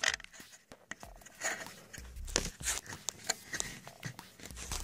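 Scattered light clicks and rubbing as a hand handles the plastic crankcase ventilation valve, its hose and bolts on the engine, checking that the bolts are seated. The clicks come irregularly, with no steady rhythm.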